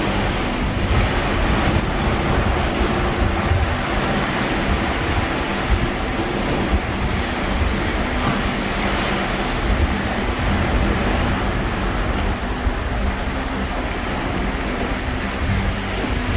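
Ocean waves rushing steadily, heard from aboard a cruise ship, with wind buffeting the microphone and a low steady hum underneath.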